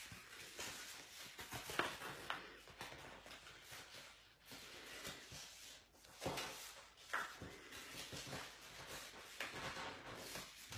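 Faint rustling and crinkling of cardstock being folded and creased by hand, with a handful of short, sharper crackles.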